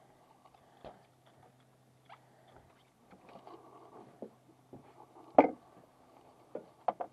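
Scattered knocks, taps and scrapes on a fiberglass boat deck as an angler moves about and handles his rod, with one sharp knock about five and a half seconds in and a few quick clicks near the end, over a faint steady low hum.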